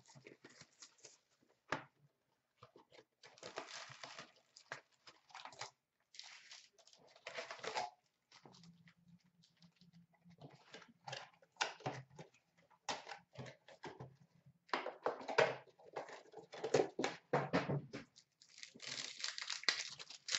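Wrapping being torn and crinkled off a box of hockey trading cards as the cardboard box is handled and opened: a string of short rustling tears and crackles.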